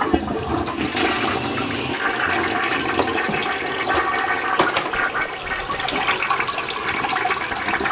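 Toilet flushing: water rushing into and through the porcelain bowl, starting suddenly and running steadily.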